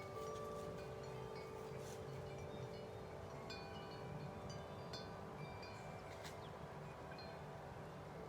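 Wind chimes ringing in strong wind: low tones hold and overlap while higher notes are struck irregularly, over a low rumble of wind.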